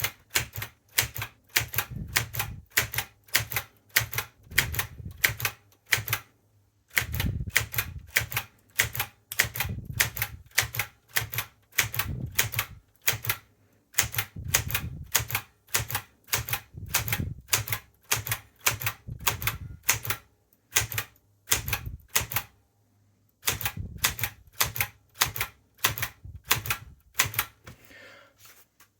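Montgomery Ward Signature 510D typewriter being typed on, keys struck one by one at about two or three a second, each a sharp clack with a dull thump of the typebar on the platen. Brief pauses break the run a few times, as each key is tried in turn to check that it works.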